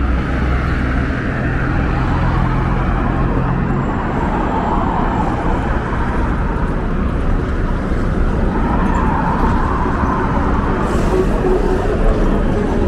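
Street traffic: steady road noise of cars driving past, with a low engine hum that fades about four seconds in.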